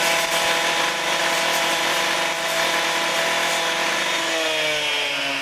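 Handheld cut-off saw running at speed as its blade cuts through a stone block, a steady high engine note that sags slightly in pitch in the last second as the blade is loaded.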